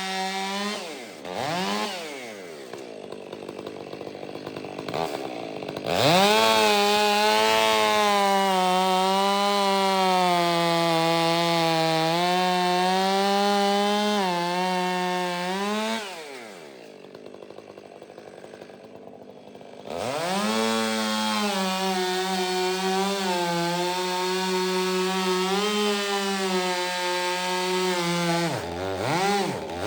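Big chainsaw with a 25-inch bar and a bark-box (modified) muffler cutting slabs at full throttle, really loud: two long cuts of about ten seconds each, dropping back to a lower speed between them. Near the end the engine falters as it runs out of fuel.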